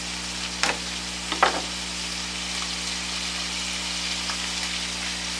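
Olive oil and chopped onion sizzling steadily in a pot, with two sharp knocks about a second in from a chef's knife smashing a garlic clove on a cutting board.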